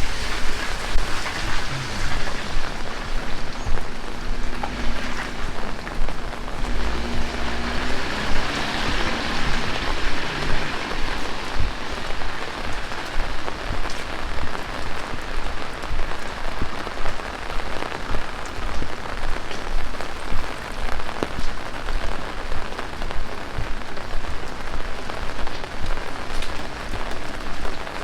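Heavy rain falling steadily, with many individual drops ticking close by.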